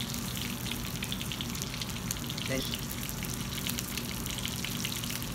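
Hot oil sizzling in a sauté pan on the stove: a steady hiss full of fine crackles.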